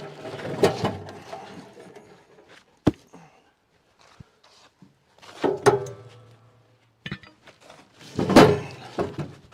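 Cut firewood being unloaded: a few separate heavy thunks as pieces are dropped, the loudest about eight and a half seconds in.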